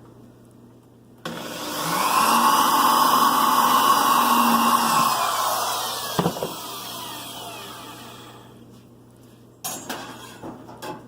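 Power drill boring an 1/8-inch hole in a poultry feeder. It starts suddenly, runs steadily for about four seconds, then slows and fades away, and a few short clicks follow near the end.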